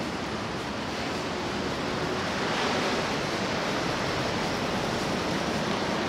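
Steady wash of ocean surf mixed with road traffic going by, swelling slightly about two and a half seconds in.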